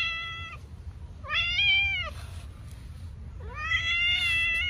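Cats meowing: the end of one meow at the start, a short meow about a second and a half in, and a longer drawn-out meow starting near the end.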